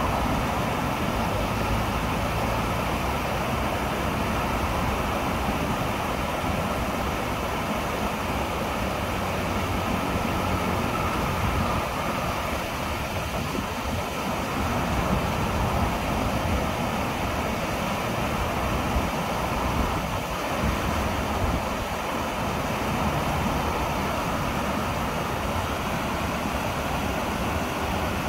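Man-made waterfall cascading over rocks: a steady, unbroken rush of falling water.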